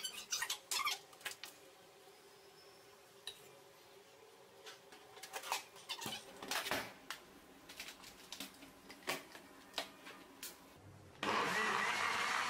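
Scattered clicks and knocks as kitchen things are handled, then an electric countertop blender switches on suddenly near the end and runs steadily, blending avocado into a drink.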